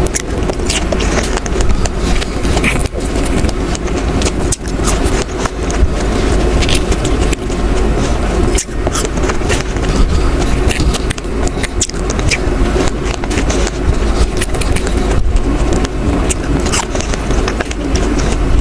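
Close-up chewing of fresh strawberries: wet mouth clicks and crackles over a steady low rumble.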